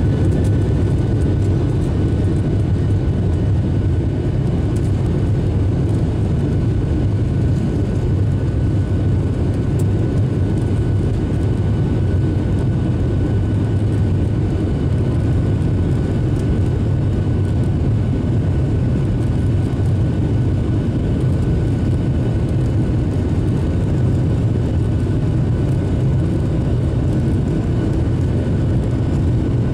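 Airbus A321 jet engines running steadily at low taxi power, heard inside the cabin over the wing. The sound is a loud, even low drone with a faint steady high whine above it.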